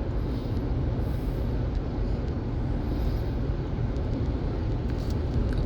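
Steady road noise of a moving car heard from inside the cabin: an even, low hum of tyres and engine at cruising speed.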